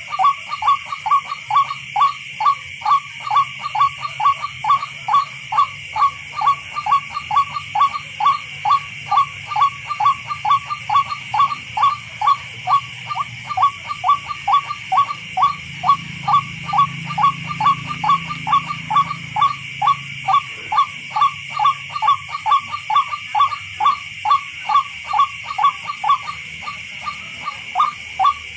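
Tikling (a rail) calling: short notes repeated evenly, about two a second, without a break, over a steady high hiss.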